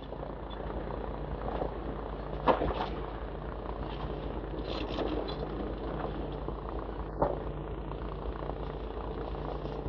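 Demolition excavators' diesel engines running steadily, with a couple of short knocks from the machine working on the building.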